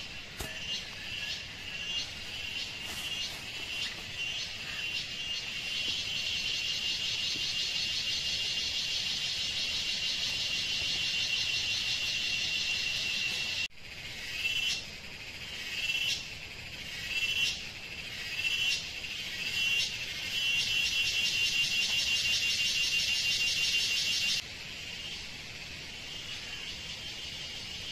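Forest insects trilling in a high, pulsing chorus that swells in waves. It breaks off suddenly about halfway, returns in short swells, then holds steady before cutting off to a fainter hum a few seconds before the end.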